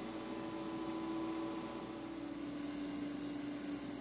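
Steady electrical hum with a faint, thin high-pitched whine above it.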